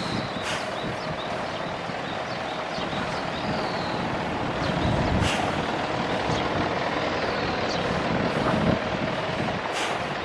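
Steady road traffic noise from vehicles running on the adjacent city road, with a faint steady hum. A few short high chirps sound now and then over it.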